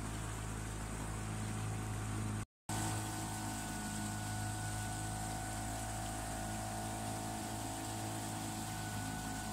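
A boat's motor running steadily under way: a low, even hum with a hiss over it. About two and a half seconds in the sound cuts out for a moment. After that a higher steady whine sits on top of the hum.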